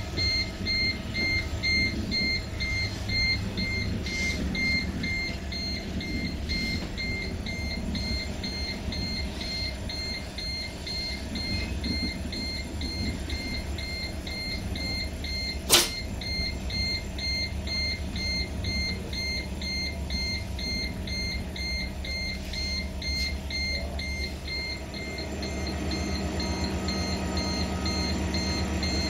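Passenger train rolling along the line, heard from inside the rear coach: a steady low rumble with a faint, evenly pulsing high electronic tone over it. A single sharp knock comes about 16 seconds in.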